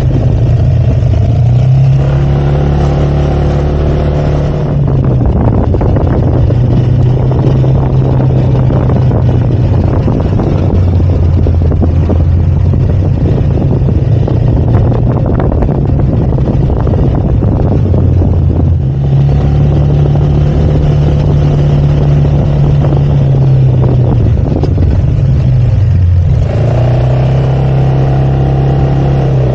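Yamaha XMAX 300 scooter's single-cylinder engine running under way, its pitch rising and falling several times with the throttle, under a steady rush of wind on the microphone.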